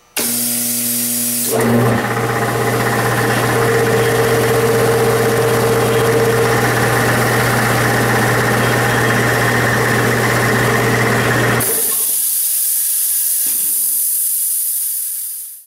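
Single-phase electric motor of a belt-driven air compressor, started on its start capacitor through a push button because the motor's internal start switch has failed, humming loudly for about a second and a half and then running with the pump working. About twelve seconds in the motor stops, and a high hiss of air carries on for a few seconds before cutting off suddenly.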